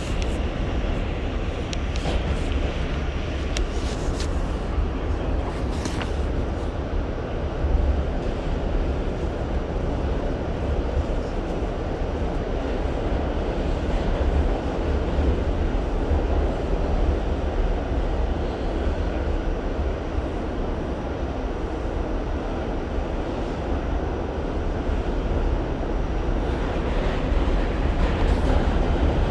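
R68 subway train running on the rails: a steady, heavy low rumble of wheels and running gear. A few sharp high squeaks or clicks come in the first several seconds.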